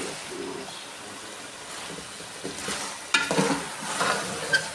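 Metal ladle stirring aloo gobi in a metal pot, with a few sharp scrapes against the pot about three to four seconds in, over a soft sizzle of the curry cooking in ghee.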